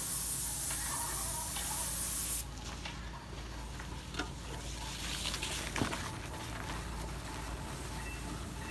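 Paint spray gun hissing as it sprays, cutting off abruptly about two and a half seconds in, followed by a few faint knocks. A steady low hum runs underneath.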